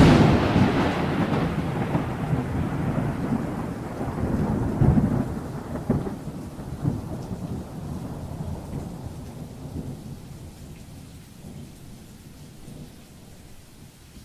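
A sudden loud thunderclap that rolls on as a long rumble, swelling again a few times in the middle and slowly dying away, over steady rain.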